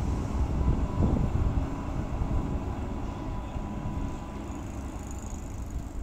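Blue articulated city tram running across an intersection and moving away. Its low rumble fades over the next few seconds, with a faint steady whine through the middle.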